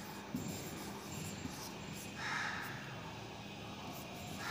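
Marker pen writing on a whiteboard: two scratchy strokes, one about two seconds in and another near the end, with a small tap early on.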